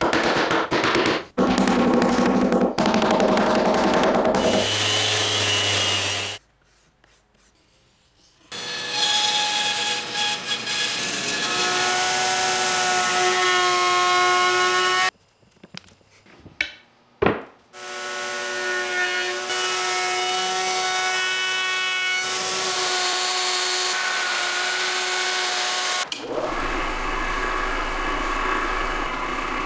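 A run of woodshop power tools in quick cuts, with two short quiet gaps. Through most of the middle, a router spins a flush-trim bit through hardwood with a steady whine. Near the end, a large orbital buffer with a foam pad rubs over the hardwood desktop with a low hum.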